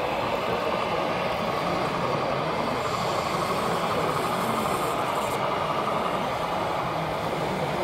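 Radio-controlled 1/14-scale model concrete mixer truck running steadily, with a constant diesel-like engine sound.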